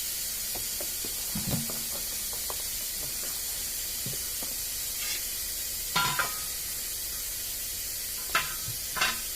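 Steady hiss of air with scattered sharp clinks and knocks of work in a tyre shop. The loudest knocks come about six seconds in and twice near the end.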